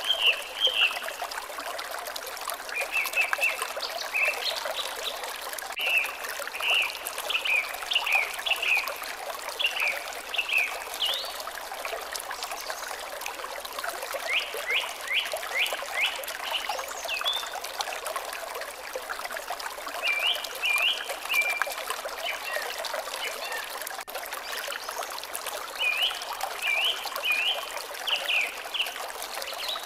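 Water trickling steadily, with a songbird singing short phrases of quick, sharp notes over it every few seconds.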